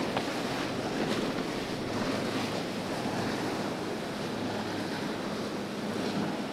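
Steady wash of waves and spray with wind on the microphone, under a low steady drone from an outboard-powered center-console boat running past at speed.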